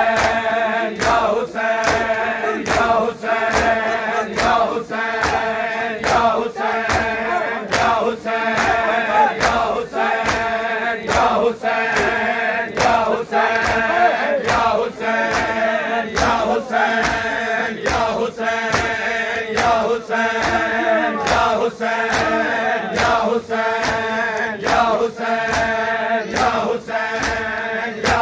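Crowd of mourners chanting a noha in unison to a steady beat of matam, open hands striking bare chests roughly twice a second.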